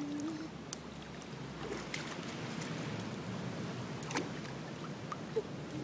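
Swimming pool water sloshing and lapping at the edge, with a few small splashes. A brief hum of a voice comes right at the start.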